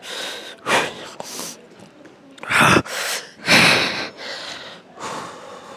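A man breathing hard from exertion in the middle of a hard timed set: several forceful, gasping breaths a second or so apart.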